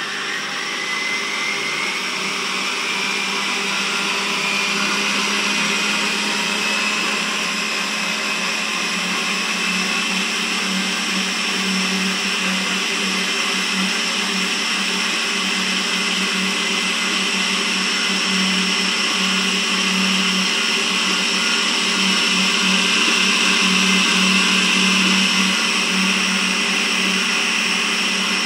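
Kogan stand mixer's motor running with a steady high whine and a low hum, coming up to speed over the first two seconds, its whisk beating egg white in the steel bowl.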